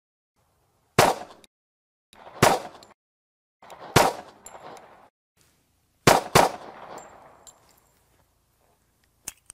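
Nighthawk Custom Bull Commander, a 1911 pistol in .45 ACP, firing a string of single shots about one to two seconds apart, two of them in quick succession about six seconds in. Each shot is a sharp crack followed by a short echo that dies away.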